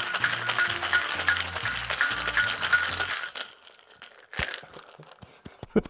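Ice being shaken hard in a metal cocktail shaker tin, a dense rattle of about three strokes a second, over background music with a bass line. The shaking stops about three seconds in, followed a second later by a single sharp knock and a few light clicks.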